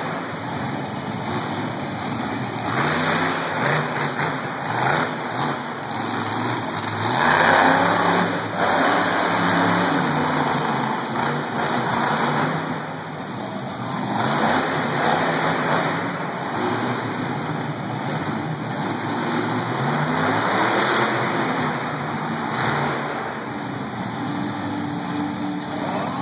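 Monster truck engines revving up and down repeatedly as the trucks drive on the dirt, with the loudest surge about seven seconds in.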